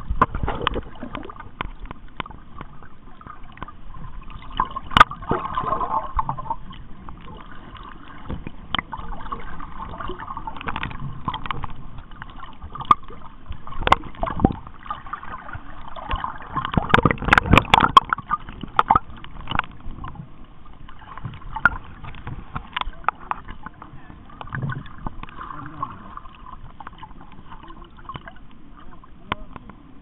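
Seawater sloshing and gurgling, with many scattered sharp clicks and knocks; the clicking is densest and loudest about seventeen seconds in.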